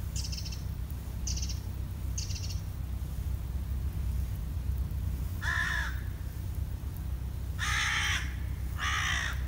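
A crow cawing: three loud caws in the second half, the last two close together, with fainter, higher calls near the start. A steady low rumble runs underneath.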